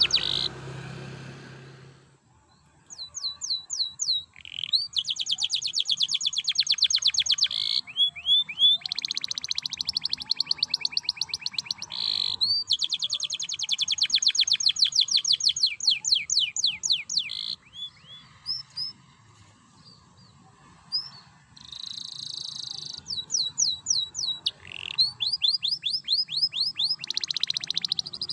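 Domestic canary in full song, delivering long rolling trills of very fast repeated high notes in phrases several seconds long, broken by two short pauses.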